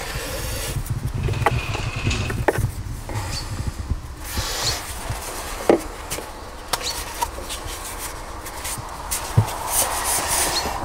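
PVC plumbing pipe being handled and pushed into the plastic fittings of a perforated drain manifold inside a plastic tub: scattered knocks, taps and rubbing of plastic on plastic.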